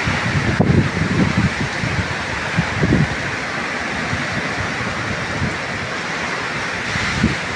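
Cyclone wind and heavy rain: a steady rushing hiss of rain, with gusts of wind buffeting the microphone in the first three seconds and again near the end.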